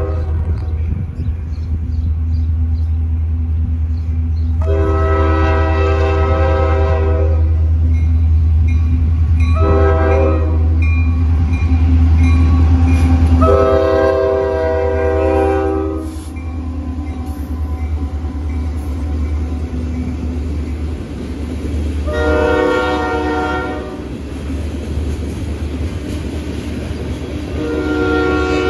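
Air horn of a train led by two EMD GP60 diesel locomotives, blown as a chord: a long blast, a short one and a long one, the end of the long-long-short-long grade-crossing signal, with two more long blasts later. Under it the locomotives' heavy engine rumble is loud until they pass, then freight cars roll by.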